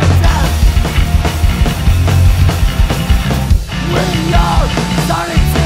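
Loud hardcore punk rock music, dense throughout, with a brief break about three and a half seconds in.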